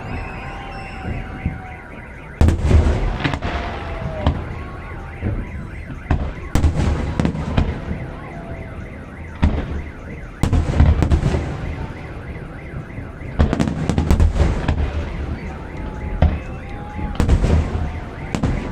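Fireworks display: salvos of shells going off in repeated loud booms with crackling and rumbling after each. Under the blasts a car alarm wails with a rising and falling tone.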